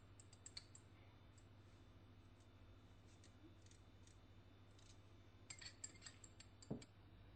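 Faint metallic clicks and clinks from a hand-held tissue press being squeezed: a few near the start and a cluster about five and a half to seven seconds in, over a low steady hum.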